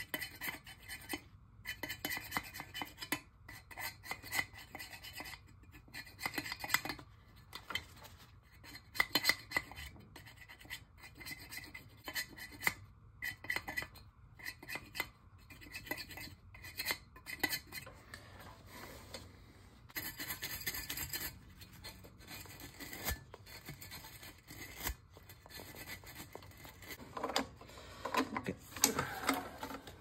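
Scraping and rubbing at the dust-caked fins of an oil burner's squirrel-cage blower wheel, irregular rasping strokes with the odd light metal clink, as the dirt is cleaned off.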